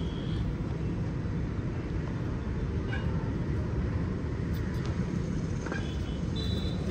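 Steady low rumbling outdoor background noise with no clear single source, and a faint short high tone near the end.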